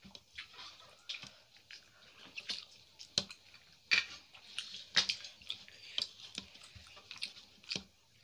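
Wet, irregular clicks and smacks of eating by hand: fingers squishing rice into curry gravy on a plate, and mouths chewing the food.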